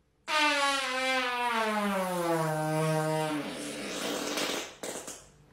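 A long fart from a person, its pitch falling steadily over about three seconds and ending in a breathy hiss.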